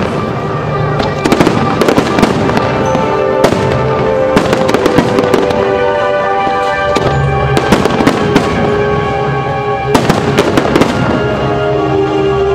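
Aerial fireworks bursting in clusters of rapid bangs every couple of seconds, over loud music with held tones.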